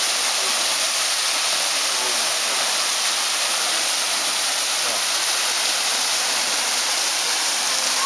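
Waterfall pouring into a rock pool: a steady hiss of falling water.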